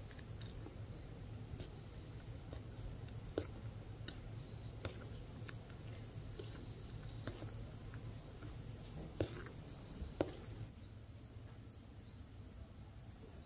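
Insects trilling steadily in a high chorus; one thin high tone among them stops about eleven seconds in. A few sharp clicks and snaps come through, the loudest two near the end.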